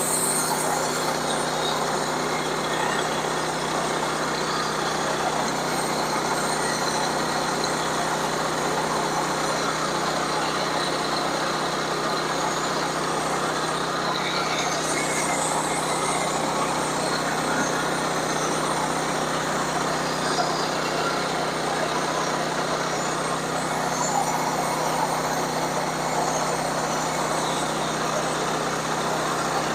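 Sawmill running steadily, its engine humming under the noise of the saw cutting through a log.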